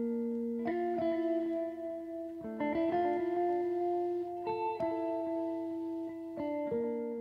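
Instrumental intro music: slow, ringing chords, a new one struck every couple of seconds, starting to fade out near the end.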